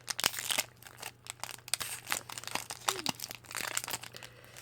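Foil Pokémon booster pack wrapper crinkling and crackling as it is handled and opened, in a run of short irregular crackles.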